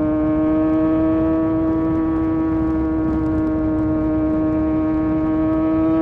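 Kawasaki Ninja sportbike engine running steadily at high revs at highway speed, its pitch creeping slightly upward as the bike gradually gains speed, over a low rush of wind.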